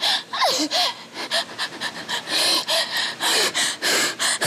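A woman breathing in rapid, heavy gasps, about four a second, with a few short whimpers: hyperventilating in a fit of hysterics.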